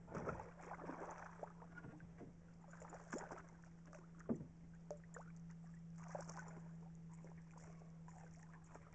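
Faint light splashes and a few small scattered knocks as a hooked smallmouth bass is played to the side of a canoe, over a steady low hum.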